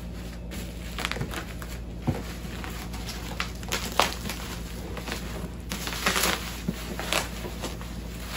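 Thick plastic packaging crinkling and rustling in irregular bursts as it is pulled and peeled off a cardboard box, louder around four and six seconds in.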